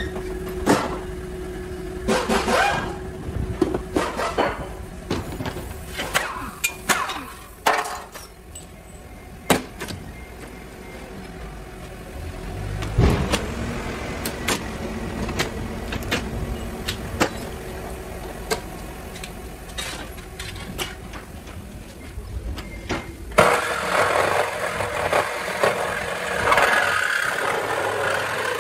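Metal knocks and clanks as car body parts are pried and unbolted, with a steady low hum in the middle stretch. About 23 seconds in, a handheld power saw starts cutting through the car's sheet-metal floor with a harsh rasping that runs on to the end.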